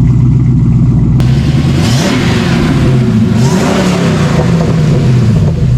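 Nissan Skyline R32 GT-R's twin-turbo straight-six under hard acceleration: the engine note climbs and drops twice as it pulls and shifts, with a loud rushing intake and exhaust noise coming in about a second in.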